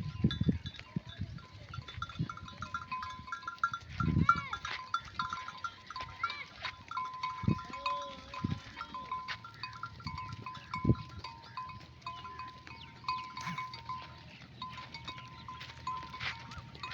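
Bells on a grazing flock of sheep clinking and ringing continuously, with a couple of sheep bleats, about four seconds and eight seconds in.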